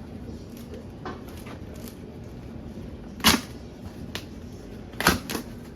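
A cardboard shipping box and its contents being handled: light rustles and clicks, then sharp knocks about three seconds in and twice about five seconds in.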